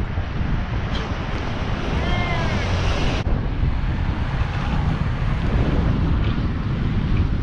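Wind buffeting the microphone of a handlebar camera on a moving bicycle, a steady loud low rumble. About two seconds in comes a brief high-pitched cry lasting about a second.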